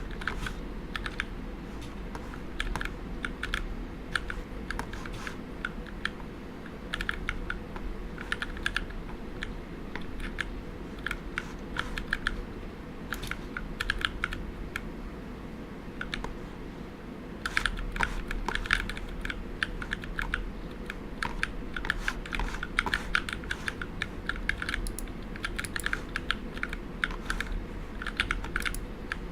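Typing on a mechanical keyboard with Cherry MX "Ergo" Clear switches: runs of key clicks and clacks in quick bursts with short pauses between them.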